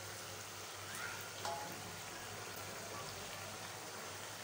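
Chicken pieces sizzling in a wet onion-tomato masala in a wok: a steady, soft hiss.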